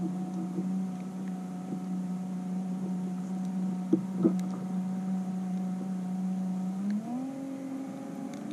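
A boat motor running with a steady hum, its pitch stepping up about seven seconds in. A few short clicks of handling come in around the middle.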